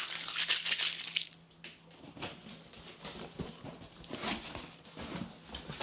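Cardboard box being opened by hand: a dense run of crackling and rustling for about the first two seconds, then scattered short crinkles as the flaps are lifted and the crumpled brown packing paper inside shifts.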